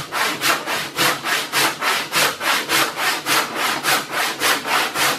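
Handsaw crosscutting a 3-inch-thick solid hickory slab, with quick, even back-and-forth strokes, roughly three a second, as the slab is cut to length.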